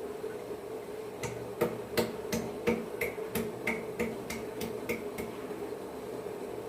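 Fresh ginger being pounded to crush it: about a dozen sharp strikes, roughly three a second, each with a slight ring, starting about a second in and stopping a little after the middle.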